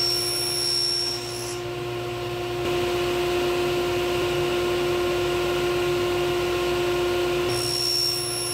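Table saw with a regular blade running with a steady hum, making two shallow 1/4-inch-deep cuts through a small clamped wooden piece. Each cut adds a higher whine, about the first second and a half and again near the end.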